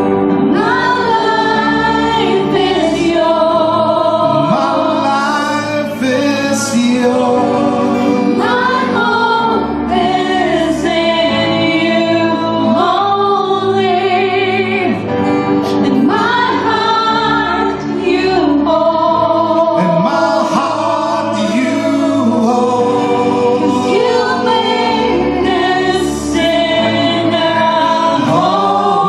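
Live worship band playing a gospel-style song, with several male and female singers singing together into microphones over electric guitar and a steady bass line.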